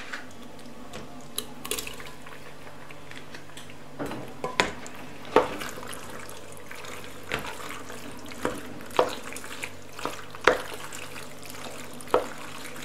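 Cooked penne being stirred into tomato and sausage sauce in a stainless steel pot: wet squishing of pasta and sauce, with a spoon knocking against the pot's sides at irregular intervals from about four seconds in.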